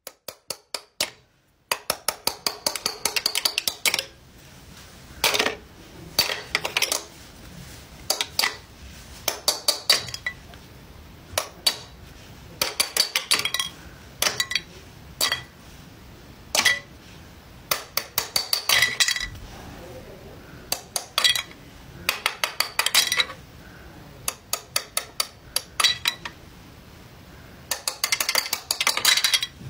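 Small plastic mallets tapping and knocking hard plastic cubes out of a toy tray: clusters of quick clicks and clacks every second or two, with blocks clattering as they drop.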